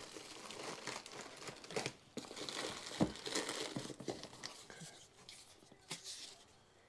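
Plastic packaging crinkling and cardboard boxes rubbing as packed parts are shifted inside a shipping box, with a couple of light knocks, about three and six seconds in, as a smaller box is pulled out.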